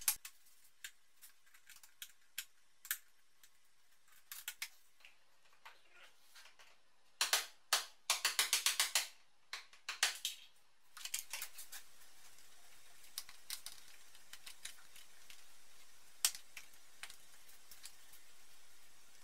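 Screwdriver working the old brake line brackets on a car's inner wing: scattered small metal clicks, taps and scrapes, with a quick run of clicks about eight seconds in.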